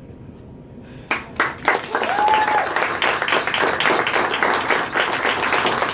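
A small group of guests clapping and applauding for the exchange of rings, breaking out suddenly about a second in and keeping up steadily.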